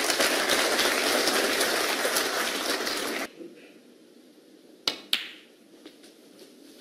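Audience applauding, cut off abruptly a little over three seconds in. About a second and a half later come two sharp clicks a quarter of a second apart: snooker balls being struck.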